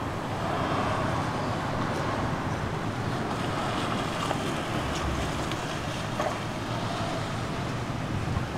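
Steady rushing wind noise on the microphone, with a few faint clicks in the middle.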